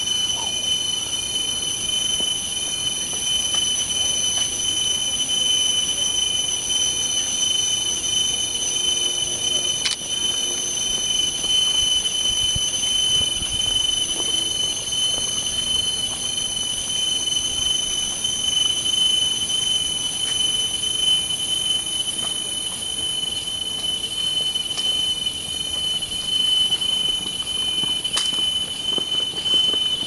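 Cicadas calling in chorus: a loud, steady, high-pitched whine.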